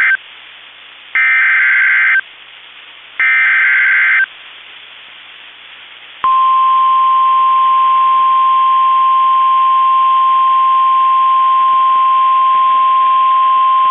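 NOAA Weather Radio Emergency Alert System signal. First come the end of one SAME header data burst and then two more raspy digital data bursts, a second apart. About six seconds in, the steady 1050 Hz warning alarm tone sounds, announcing a tornado warning.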